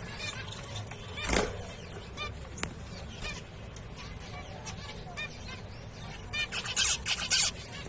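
Zebra finches calling: short repeated chirps, with one loud call about a second and a half in and a busy, louder run of calls near the end.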